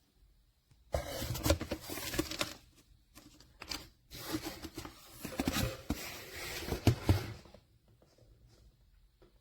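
Rustling and handling noises in two long stretches, with sharp clicks and scrapes among them.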